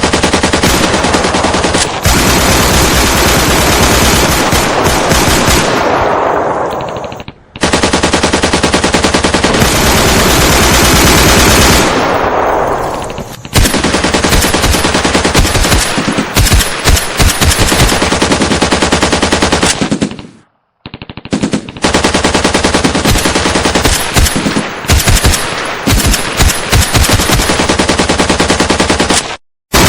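Sustained automatic machine-gun fire in a firefight sound effect, with rapid shots overlapping in long bursts. It fades twice and cuts off abruptly near 7.5 s, 20.5 s and just before the end, where one stretch of fire is joined to the next.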